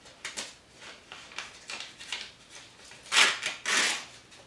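Paper rustling and crinkling in short scrapes as a greeting card is worked out of a tight paper envelope, with two louder rustles a little over three seconds in.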